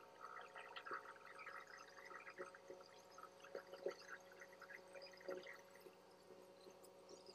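Faint light pencil strokes scratching and tapping on a sheet of drawing paper, thinning out and stopping about five and a half seconds in, over a faint steady hum.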